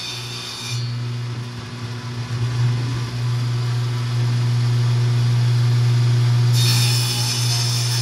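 Table saw running with a steady motor hum as its blade rips lengthwise through a full sheet of OSB. It is loudest during the middle of the cut.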